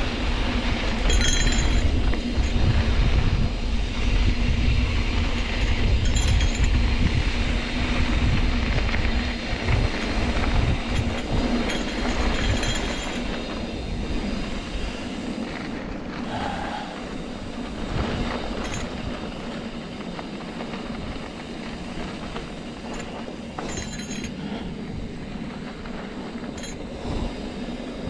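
Trek Roscoe 8 hardtail mountain bike ridden over a rough dirt trail: tyres crunching and the bike rattling and clinking over bumps, under a low rumble that is heavier in the first half and eases off after.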